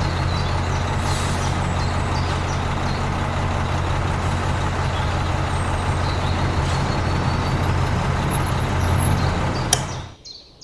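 A small motor-driven machine running steadily with a low hum and a hiss over it, cutting off abruptly near the end.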